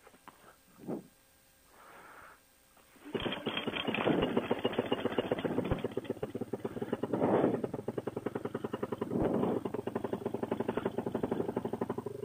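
Fresh Breeze Monster two-stroke paramotor engine, pull-started, catching about three seconds in and then idling with a fast, even firing beat. It is revved briefly twice.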